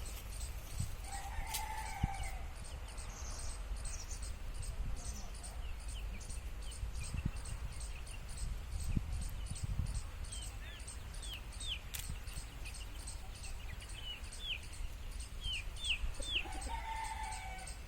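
Free-range chickens calling: a short call near the start and another near the end, with a run of quick, high, falling chirps in between.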